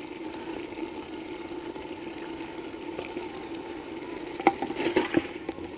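Mutton sizzling in a clay handi, cooked dry with no water added, as fresh coriander is stirred in. A ladle scrapes and knocks against the clay pot several times about four and a half to five seconds in.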